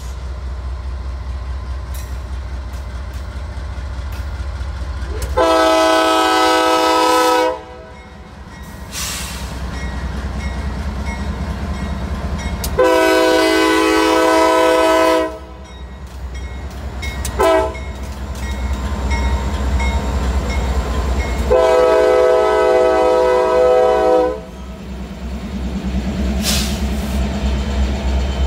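Norfolk Southern freight locomotive sounding its multi-note air horn in the grade-crossing pattern: two long blasts, a short one, then a long one. This is the standard warning for a public road crossing. Under the horn the diesel engines run with a steady low rumble that grows louder near the end as the locomotives pass.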